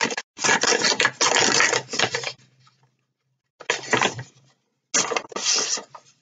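Paper rustling and crinkling in three bursts, one long and two short, as a greeting card and its envelope are handled and opened.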